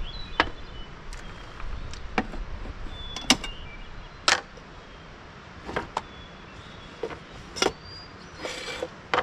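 Metal camp cookware (pots, a mug and a canister) being set down and handled on a wooden slide-out tray: a run of sharp clinks and knocks, about nine, unevenly spaced.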